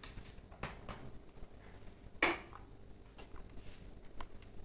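Glass pot lid being set on a cooking pan: a few light clinks, the loudest about two seconds in.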